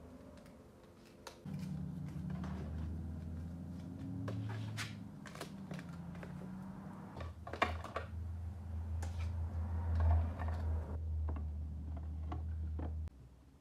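Photocards and their plastic holders being handled on a desk: scattered light clicks, taps and rustles of card and plastic. A low steady hum runs underneath, starting abruptly about a second and a half in and cutting off near the end.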